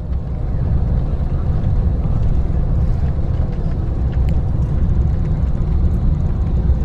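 Steady low rumble of a coach bus driving along a road, heard from inside the passenger cabin.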